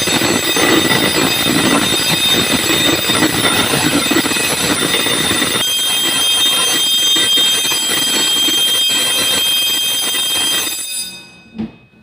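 Fire alarm ringing loudly and continuously, set off during a test of the fire alarm control panel. A second high steady tone joins about halfway through. The ringing cuts off suddenly near the end, followed by a single click.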